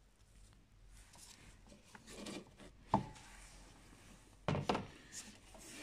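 Tools and parts being handled around a car's engine bay: faint rustling, a sharp click about three seconds in, and a brief loud scrape or rub near the end.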